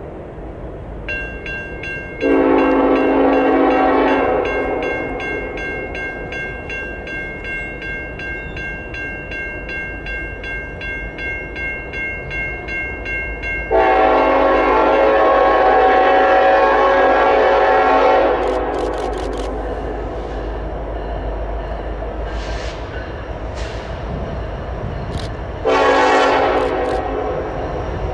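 A grade-crossing bell rings steadily and stops about halfway through. An approaching Norfolk Southern freight's lead locomotive, an SD70ACe, sounds its horn for the crossing: a long blast, a second long blast, and a short one near the end. The low rumble of the train builds toward the end as it nears.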